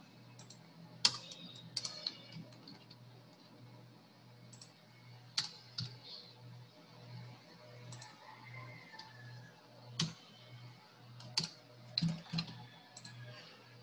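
Sparse computer keyboard typing and clicks, single sharp keystrokes spaced about a second or more apart, over a steady low hum.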